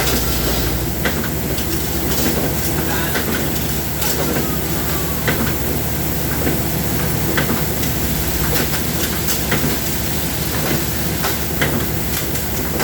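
Machinery running with a steady low hum and mechanical noise, broken by irregular sharp clicks or knocks about once a second.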